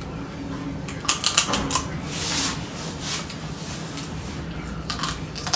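Crab shells being cracked and picked apart by hand. A quick run of sharp cracks and clicks comes about a second in, then a short hiss, and a few more clicks near the end.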